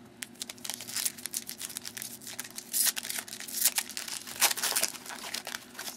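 Foil wrapper of a trading card pack being torn open and crinkled by hand: a run of irregular crackles, with louder crackles in the second half.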